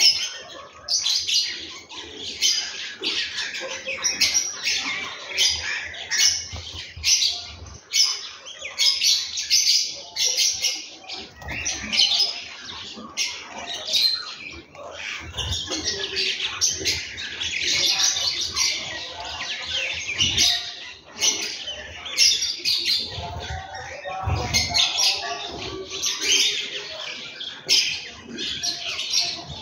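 House sparrows chirping steadily, many quick overlapping chirps.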